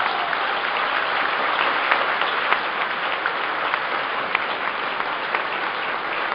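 A large audience applauding steadily, a dense sustained clapping that carries through the whole pause.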